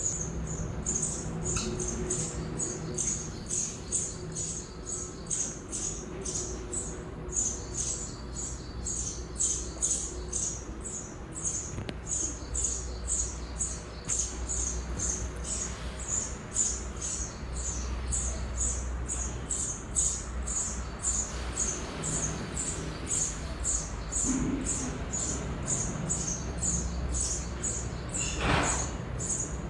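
House sparrow nestlings begging in the nest: an unbroken run of high, thin cheeps, about four a second. A brief rushing sound comes near the end.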